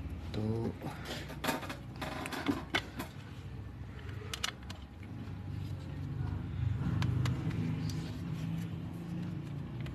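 Scattered small clicks and taps from handling phone parts and tools during reassembly, over a steady low hum that grows a little louder in the second half.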